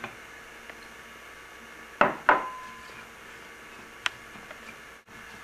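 Glass dishes clinking: two sharp knocks about two seconds in, the second ringing briefly, then a lighter click near the end, as sliced apples are tipped from a glass bowl into a glass pie dish and the bowl is set down.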